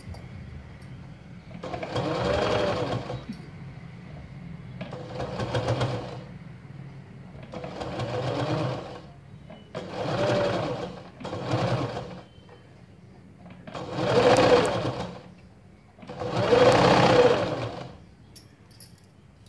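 Electric domestic sewing machine stitching in short stop-start runs, about seven bursts of a second or so with pauses between, the last two the loudest. The stops come as the piping is eased around the neckline's curve.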